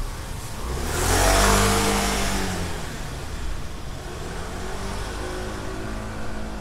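A motor vehicle drives past close by, loudest about a second and a half in, its engine note dropping as it goes by. Another engine is heard running from about halfway on.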